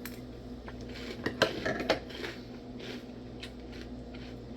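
A spoon clinking and scraping in a bowl of cereal and milk, a handful of sharp clicks bunched together about a second in, with a few fainter ones later. A low steady hum runs underneath.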